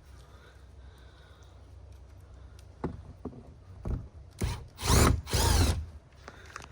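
Power drill-driver running in short bursts, driving in the screws that hold the car's underbody cover back on, with the two longest runs about five seconds in.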